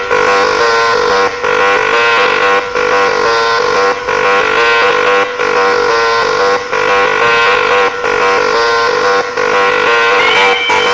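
Loud electronic techno music. A sustained buzzing synth tone is held over a dense layered track, and the sound dips briefly at regular intervals of about 1.3 seconds.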